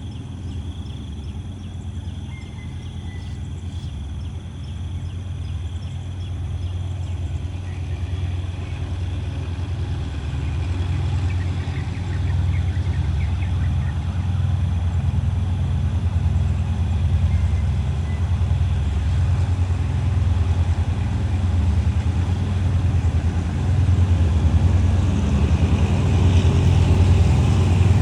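Diesel locomotive engine running with a deep, steady throb that grows gradually louder.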